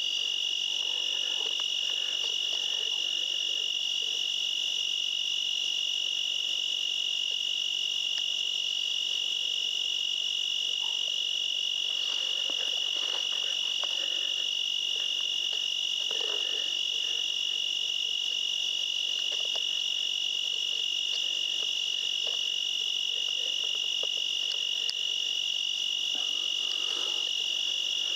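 Steady chorus of night insects, a continuous high-pitched drone that does not change.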